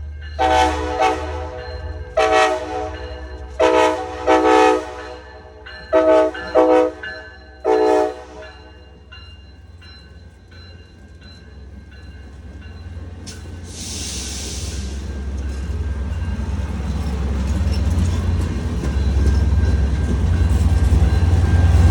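Amtrak Piedmont locomotive's air horn sounding a series of about eight short chord blasts in quick, uneven rhythm over the first eight seconds, a horn show. Then the diesel locomotive's low rumble grows steadily louder, with a brief hiss about 14 seconds in.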